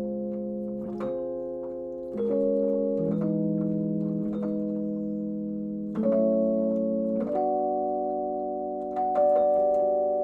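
Piano playing slow, sustained chords. New chords are struck about two, six and nine seconds in, and each rings and fades, moving through the diminished-scale harmony that connects the G, B flat, D flat and E major tonalities.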